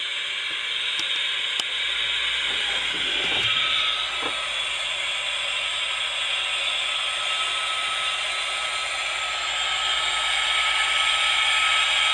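Jet engine sound from the A-10A scale model's built-in sound module, played through a small speaker: a steady hissing rush with a thin whine joining a few seconds in, growing a little louder near the end.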